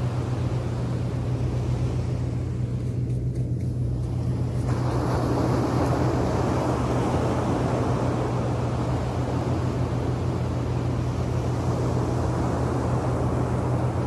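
Small surf breaking and washing on a sandy beach, the wash swelling about a third of the way in, over a steady low rumble.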